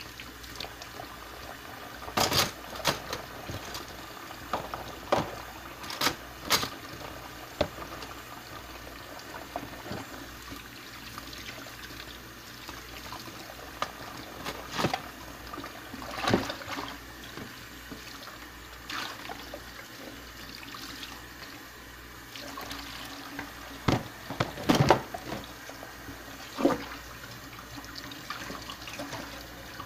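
Tap water running into a stainless-steel kitchen sink as hands wash under it, with scattered sharp knocks and clinks, the loudest a cluster about five seconds before the end.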